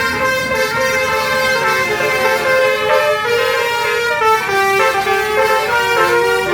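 Basuri telolet musical bus horns playing a tune: several held notes at once, stepping up and down in pitch.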